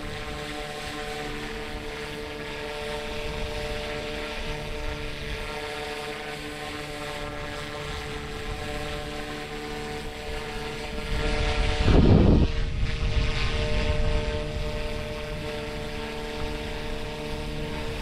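Flite Wing 200 RC helicopter flying overhead, its electric motor and rotor making a steady whine. About eleven seconds in, a loud gust of wind rumbles on the microphone for a few seconds and then dies away.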